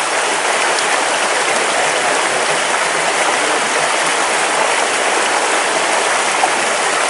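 Steady rushing of flowing water in a small stream, even and unbroken.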